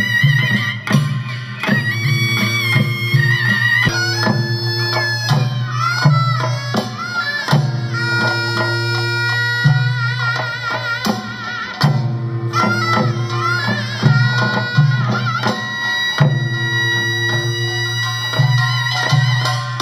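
Korean traditional music: a reedy wind-instrument melody that bends and wavers in pitch over a steady low drone and regular drum beats.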